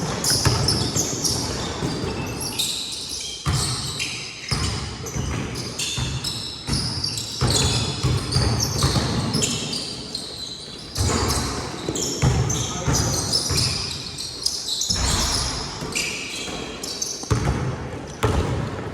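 Basketball bouncing on a gym court during a pickup game, with players' footsteps: repeated thuds throughout.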